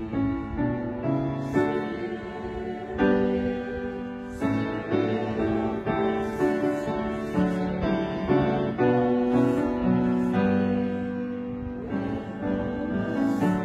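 A hymn with piano accompaniment: held chords that move from one to the next every second or so.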